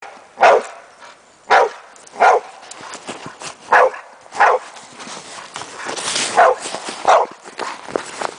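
Bulldog-type dog, a Brabanter bullebijter, barking in an excited series of seven loud, short barks at uneven intervals.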